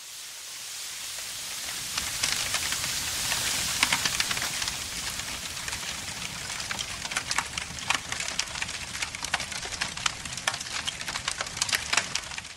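Sizzling and crackling of cooking going up in smoke: a steady hiss full of sharp crackles that grows louder about two seconds in.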